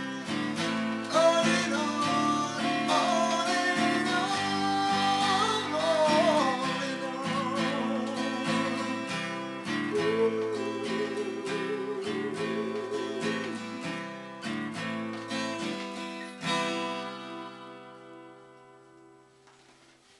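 Steel-string acoustic guitar strummed with a man singing over it, the end of a song. The singing stops a little past halfway; a last chord is struck about three-quarters of the way in and rings out, fading away.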